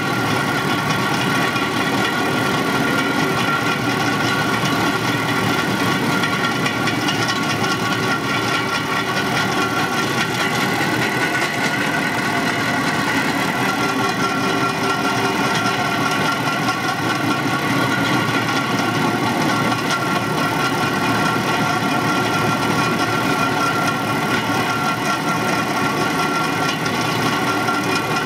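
Motorized rail cart (draisine) rolling along the track, its small engine running at a steady speed with a continuous even hum of several held tones.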